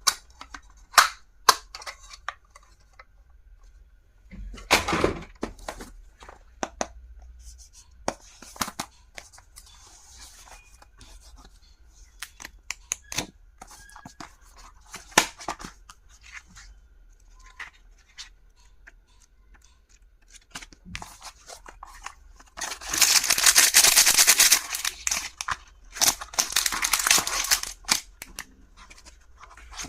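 Stationery and its packaging being handled: scattered sharp clicks and knocks, then two longer bursts of crinkling or tearing packaging from about 23 and 26 seconds in.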